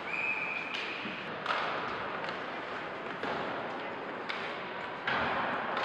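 Ice hockey play in a rink: several sharp knocks of sticks, puck and boards, each trailing off in the rink's echo. A brief high steady tone sounds in the first second.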